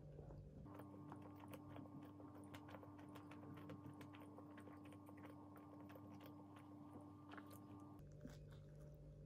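Faint close-up chewing and biting of a soft brown-bread sandwich with egg-potato salad filling: a run of small wet mouth clicks over a low steady hum.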